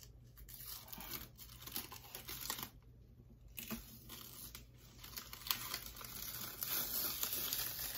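Clear plastic protective film being peeled off a lighted vanity mirror's bulbs, crinkling and rustling in short crackles that grow louder over the last few seconds.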